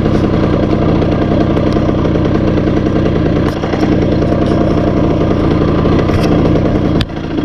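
49cc moped engine, fitted with a Polini air filter and a Dellorto carburettor, running steadily at a fairly even speed, with a sudden brief drop near the end.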